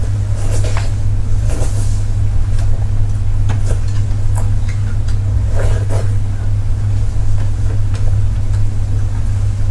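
A loud, steady low hum with scattered short clicks and wet crackles of someone eating close to the microphone.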